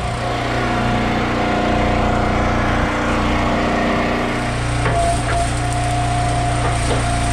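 Wood splitter's small gasoline engine running steadily, with a couple of short wooden knocks in the second half.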